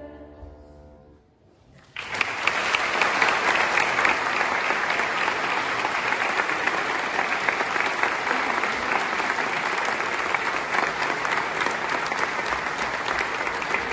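The last notes of a choir's song fade out, then about two seconds in a large concert-hall audience starts applauding, a dense steady clapping that keeps going.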